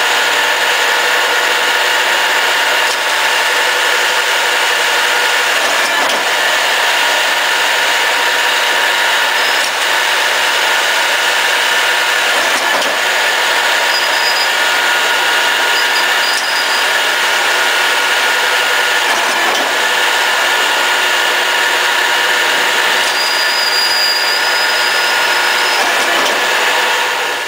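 A 1981 Wickman 5/8-inch multi-spindle automatic screw machine, freshly rebuilt with new spindle bearings, running steadily: an even mechanical whir with several constant high tones, faint ticks and now and then a brief high whine.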